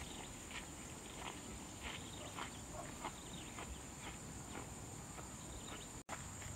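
Footsteps rustling through dry grass and undergrowth, irregular, about two steps a second, over a steady high insect drone.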